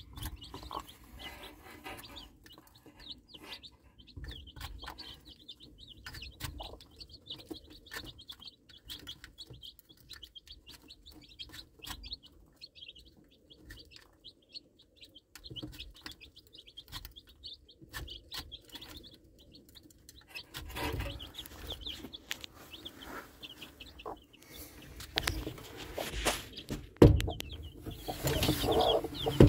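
Baby chicks peeping in a steady high-pitched chorus, while a broody hen clucks low to them and beaks click against a plastic chick feeder. Near the end come one sharp knock and louder rustling as a hand reaches in close.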